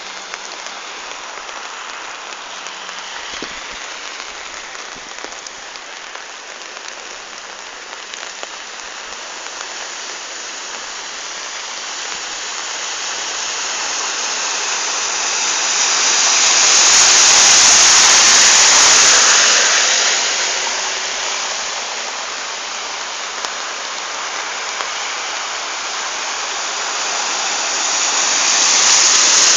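Steady hiss of rain on a flooded street. Cars drive through the standing water, and their tyre spray swells into a loud rushing wash as one passes about two-thirds of the way through, with another building up near the end.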